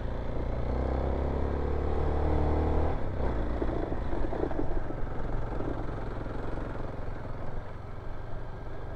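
Kawasaki KLX dual-sport motorcycle's single-cylinder engine running, with a steadier, stronger drone for the first three seconds that then eases off, and a few rattles about four to five seconds in.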